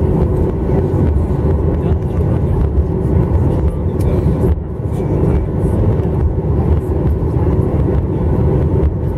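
Cabin noise inside a Boeing 737-900ER taxiing on the ground: the CFM56 jet engines running at taxi idle under a steady low rumble from the rolling airliner.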